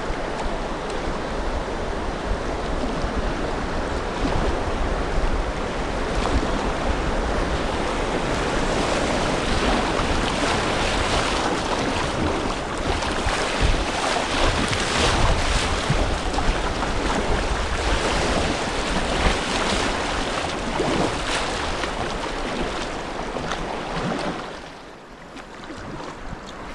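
Steady rushing noise of river water around a kayak, with wind buffeting the microphone in gusts; it falls away sharply about 24 seconds in.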